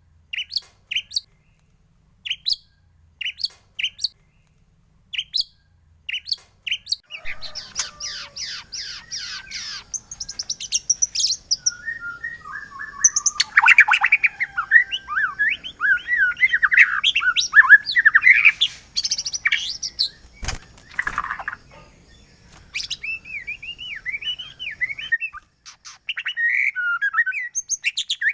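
White-rumped shama singing: sharp single chirps spaced about a second apart, then from about seven seconds a long, fast, varied song of trills and whistled glides, broken by a short pause near the end. A single sharp click a little past the middle.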